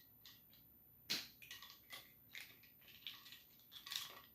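Faint, irregular small clicks and soft crackles of mussels being picked from their shells and laid onto lettuce leaves.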